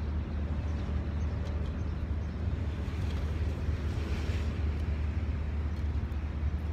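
Steady low outdoor rumble with a few faint clicks over it.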